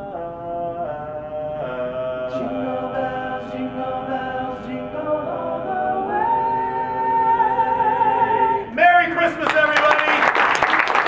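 Male a cappella doo-wop group singing in close harmony, the chords changing every second or so, then a long held chord and a final swelling chord to end the song. Applause breaks out near the end.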